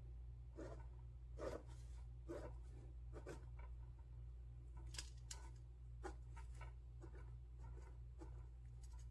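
Ballpoint pen writing numbers on spiral notebook paper: short, irregular scratchy strokes, faint, over a steady low hum.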